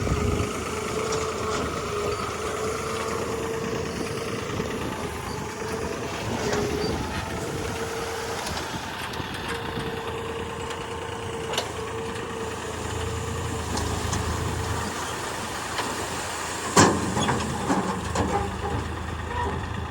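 Diesel engine of heavy machinery running steadily, with a steady whine that comes and goes, and a loud sharp knock about seventeen seconds in followed by a few smaller knocks.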